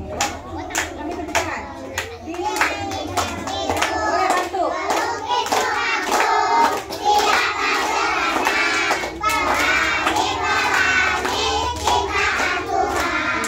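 Children singing a song, with hand clapping in a steady beat of about two claps a second.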